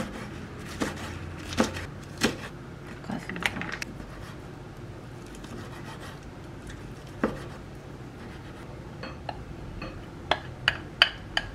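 Kitchen knife chopping on a wooden cutting board: a handful of separate chops in the first few seconds and one more about seven seconds in. Near the end comes a quick run of ringing clinks as a glass bowl knocks against a ceramic dish.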